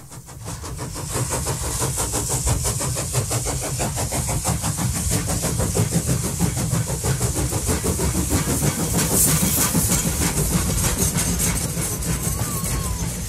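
Steam-hauled heritage train running along the line, heard from aboard the carriages: a steady low rumble and hiss with a fast, even beat, fading in over the first second.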